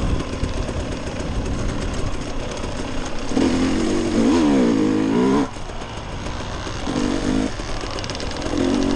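Dirt bike engine under way, its pitch rising and falling as the throttle is worked. It revs up about three seconds in, cuts back sharply a little past halfway, then picks up again near the end.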